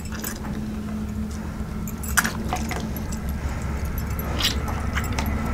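Bangles clinking and jingling on the wrists in scattered little clicks as both hands knead and squeeze a ripe mango to loosen its pulp, over a steady low hum.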